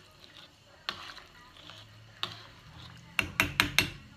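A spoon stirring pinto beans and broth in a pan, soft and quiet, then about four quick sharp taps of the spoon against the pan near the end.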